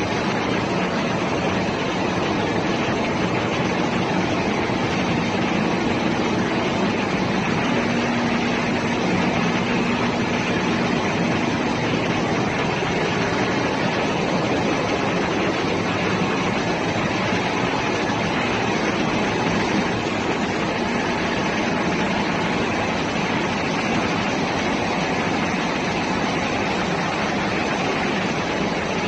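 Ship's engine room machinery running, a steady, unbroken mechanical noise with no knocks or pauses.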